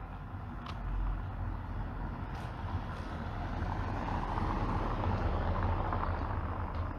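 A road vehicle passing by: a low rumble with a broad rush of noise that builds to a peak about four to six seconds in, then eases off.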